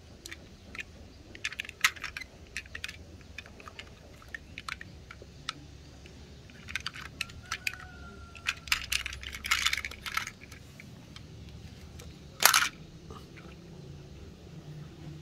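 Light clicks and taps of plastic toy vehicles being handled, scattered irregularly, with a brief louder scrape about twelve seconds in.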